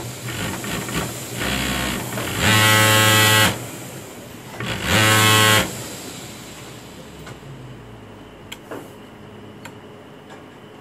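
Pegasus industrial sewing machine running at high speed in two short bursts of about a second each, a steady pitched hum, with a softer, shorter run just before them. A few light clicks follow near the end.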